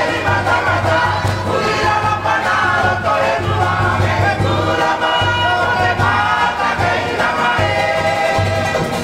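Cook Islands kapa rima song: a group singing together in harmony over instrumental accompaniment with a steady, rhythmic low beat.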